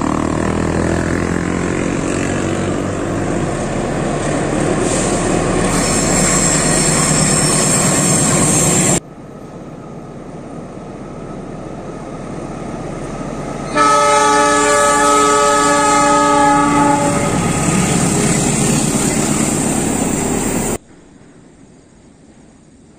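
Diesel-electric locomotive-hauled passenger trains crossing a steel truss railway bridge: a loud rumble and rattle of wheels on the bridge, with a high whine over it from about six seconds in. After an abrupt cut the train runs quieter, then the locomotive sounds its horn, one long chord-like blast of about three seconds. Near the end it cuts to a much quieter background.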